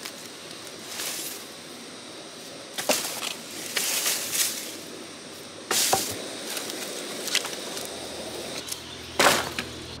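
Dead branches and sticks being handled and laid down in dry leaf litter, with steady rustling and several sharp knocks and cracks of wood, the loudest about three, six and nine seconds in.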